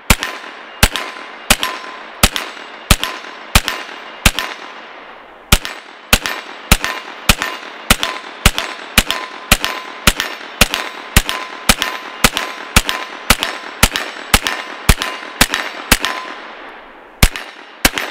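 Ruger PC Carbine 9mm semi-automatic rifle fired repeatedly through a 30-round magazine, each shot with a ringing echo. The shots come a little over one a second at first, pause briefly about 5 s in, then run faster at about two to three a second, ending with two spaced shots near the end.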